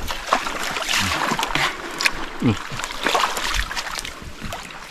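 Shallow river water splashing and sloshing around hands and legs of someone wading and groping for shrimp, with a few short knocks.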